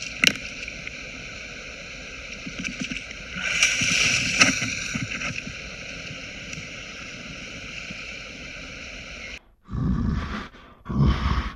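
Water splashing hard for about a second and a half near the pond bank, over a steady hiss. After a sudden break near the end come two short, loud, low-pitched bursts.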